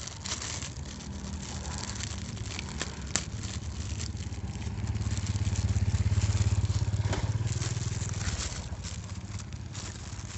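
A motor vehicle's engine running with a low hum that swells about five to eight seconds in, then fades. Over it come scattered clicks and crackles of toy packaging being handled.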